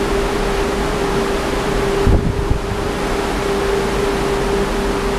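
Gale-force wind, about 50 knots, blowing across a ship's balcony and buffeting the microphone, with a steady tone held throughout. A heavier gust thumps the microphone about two seconds in.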